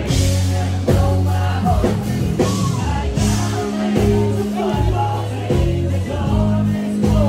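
Music with a singing voice over held bass notes.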